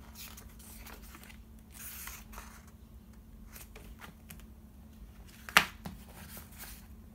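Paper handling: the pages of a thin paperback book rustling and brushing as it is closed and turned over, and its cover sliding on a wooden tabletop. One sharp knock about five and a half seconds in is the loudest sound.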